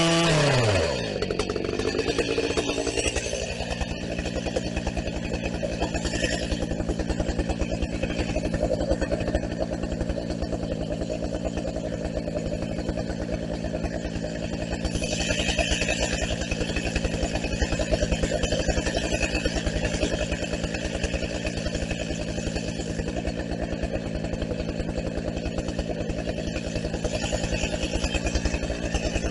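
Husqvarna 380 CD two-stroke chainsaw dropping off the throttle about a second in, its pitch falling, then idling steadily.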